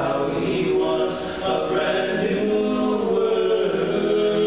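Male vocal group singing together, several men's voices holding sustained notes, with a lead singer on a microphone.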